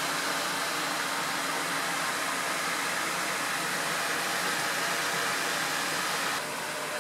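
Steady hiss of background noise with a faint steady hum under it; it drops a little in level near the end.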